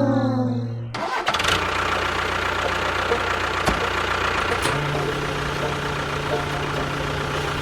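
Engine running steadily with a low hum, which steps up slightly in pitch about halfway through. Before it, brass-like music cuts off about a second in.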